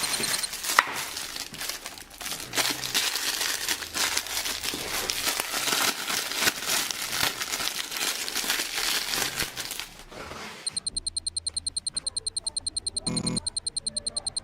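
Plastic packaging crinkling and tearing as it is handled and opened, for about ten seconds. Then a fast, steady, high ticking pattern starts, with two short pitched calls over it near the end.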